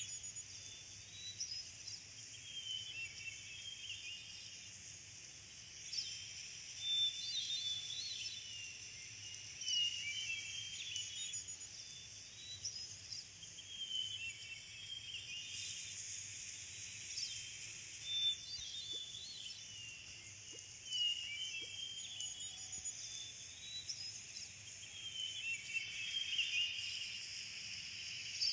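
Outdoor nature ambience of small birds chirping in short high phrases that come back every few seconds, over a steady high-pitched hiss.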